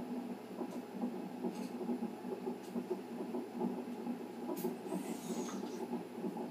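Fetal heartbeat picked up by a Philips fetal monitor's Doppler ultrasound transducer and played through the monitor's speaker as a rapid, steady pulsing beat at about 138 beats a minute, within the normal range for a fetal heart.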